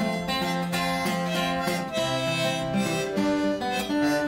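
Harmonica playing a melody in held notes over acoustic guitar accompaniment: the instrumental break between verses of a folk ballad.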